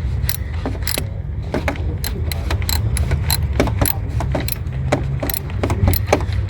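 Ratchet on an extension clicking in short irregular runs while loosening the 13 mm battery hold-down bolt at the bottom of the tray, over a steady low hum.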